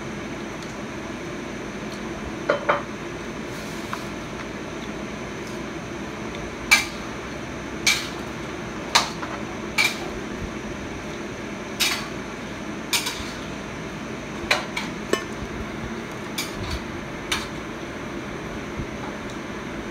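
Eating crispy KFC fried chicken: about a dozen short, sharp crunches and clicks at uneven intervals over a steady background hum.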